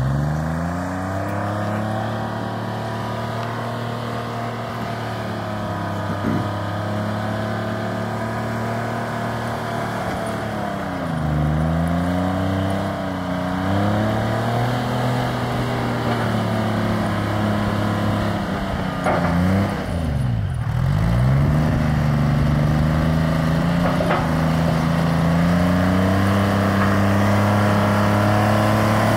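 Timberjack 208D skidder's diesel engine running as the machine drives closer, growing louder as it nears. Its engine pitch sags twice around eleven to fourteen seconds in and drops deeply about twenty seconds in before picking back up.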